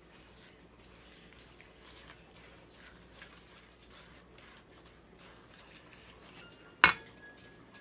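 Silicone spatula mixing creamed butter in a stainless steel bowl: faint soft scraping and rubbing strokes. Near the end, one sharp knock against the steel bowl, which rings briefly.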